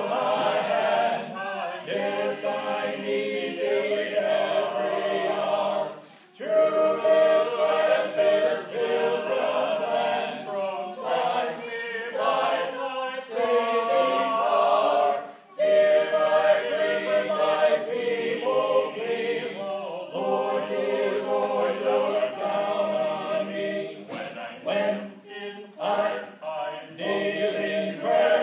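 An a cappella vocal ensemble singing in harmony, holding chords, with short breaks about six and fifteen seconds in.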